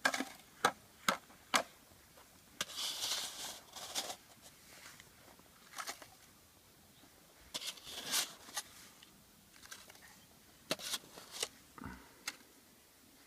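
Snow crunching and scraping as a toddler plays with a plastic toy dump truck: scattered sharp clicks and short crunches, with a couple of longer scrapes about three and eight seconds in.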